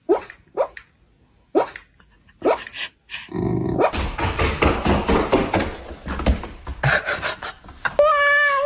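A dog barking four times, short sharp barks spaced about half a second to a second apart. After about three seconds a dense, rough noise takes over, and a steady pitched tone sounds near the end.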